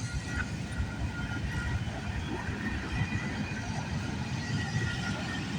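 Intermodal freight train cars rolling past: a steady low rumble of wheels on rail, with faint steady high tones over it, in heavy rain.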